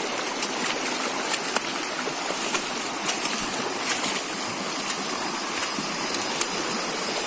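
Stream water running steadily, an even rushing with a few faint clicks scattered through it.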